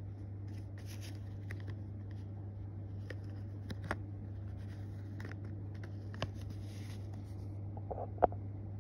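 Cardboard toy box being handled, with scattered light scrapes, rustles and clicks and one sharper click near the end, over a steady low hum.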